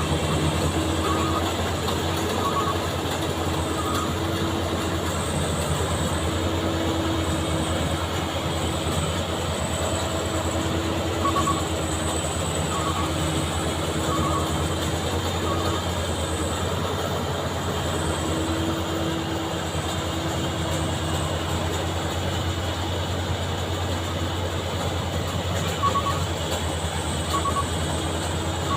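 Maxxi Bimo 102 combine harvester running steadily while harvesting rice: a constant engine drone with a strong low hum, and small paired clicks every second or so at times.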